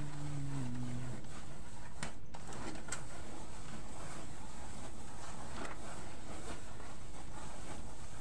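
Hands rubbing and crumbling damp cassava flour in a bamboo winnowing tray, making soft scattered rustles and scrapes as the flour is worked into tiwul granules, over a steady low rumble. A low, drawn-out call ends about a second in.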